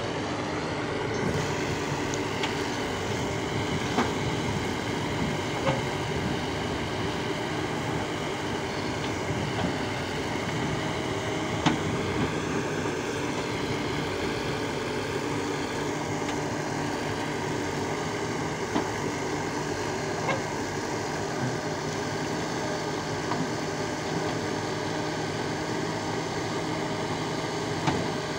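Heavy diesel engines running steadily: a JCB 3DX backhoe loader close by and a loaded Sonalika 740 DI tractor, with a few sharp knocks scattered through.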